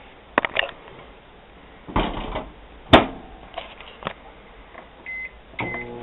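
Microwave oven being closed and started: a few handling clicks and knocks, a sharp clack of the door shutting about three seconds in, two short keypad beeps near the end, then the oven starting to run with a steady hum.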